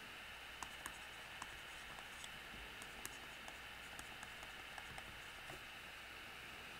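Faint, irregular taps and light scratches of a stylus writing on a tablet screen, over a steady low hiss and hum.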